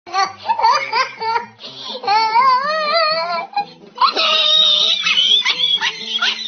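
Monkey laughing sound effect over music with a steady low bass line: shrill, wavering, chattering laughs that end in short rising squeaks repeating about twice a second.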